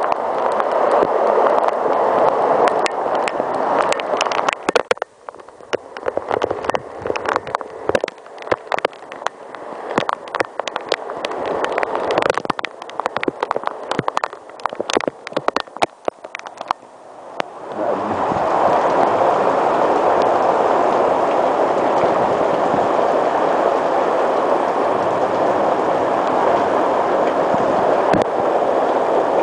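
Heavy rain pouring down: a steady rush of water noise. For about twelve seconds in the middle it falls lower, and the sharp taps of single drops striking close by stand out, before the full, even rush comes back.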